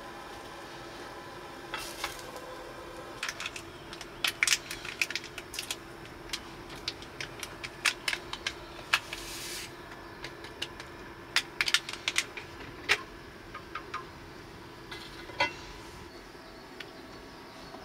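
Chopsticks clicking and scraping against a metal camp plate, with light handling clinks of tableware, in short scattered runs of sharp clicks over a steady faint hum.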